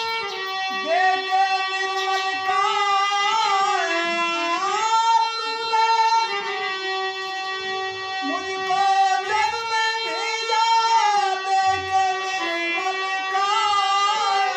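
A Krishna bhajan: a man's singing voice gliding through the melody over long held instrumental notes that step down in pitch.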